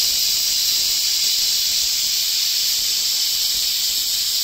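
Prestige Deluxe pressure cooker whistling: steam jets out under the weight valve as a steady hiss, the sign that the cooker has come up to full pressure.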